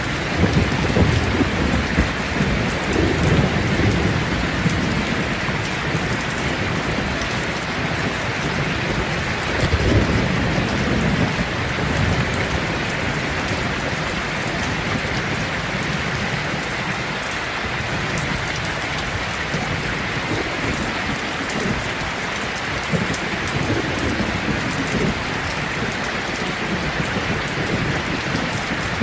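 Steady heavy rain, with low rolls of thunder swelling near the start, about ten seconds in, and again later.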